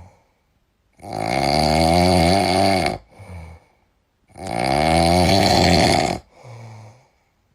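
Loud snoring: two long snores, each followed by a shorter, quieter breath.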